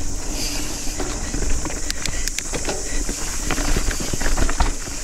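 Hardtail mountain bike (Nukeproof Scout 275) descending a dirt trail: tyres rolling over the ground, with many quick clicks and knocks as the rigid-framed bike rattles over roots and bumps, over a steady low rumble.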